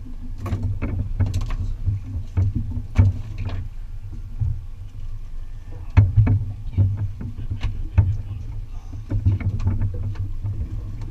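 Sounds aboard a fishing boat on open water: a low rumble that swells and fades, with irregular knocks and slaps, several a second at times, the loudest about six and eight seconds in.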